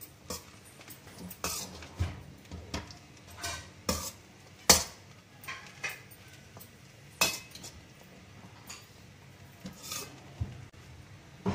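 A metal spoon stirring cooked vermicelli upma in a stainless steel pan, scraping and clinking against the pan's sides at irregular moments; the loudest is a sharp knock a little under five seconds in.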